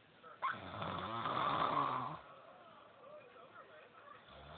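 A person snoring: one long, loud snore that starts suddenly about half a second in and lasts nearly two seconds, and the next snore beginning near the end.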